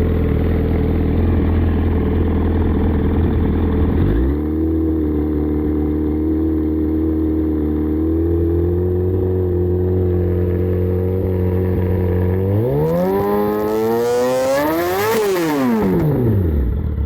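Warmed-up engine running at 219 on its temperature gauge after a hard cold start: idling steadily, stepping up to a higher steady speed about four seconds in, then revved up once and let fall back near the end.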